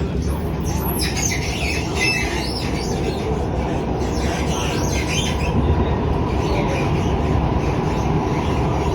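Alstom Movia R151 MRT train running between stations, heard from inside the car: a steady rumble with loud, irregular squeaking, strongest from about one to three seconds in and again around five seconds in. A thin steady tone comes in near the end.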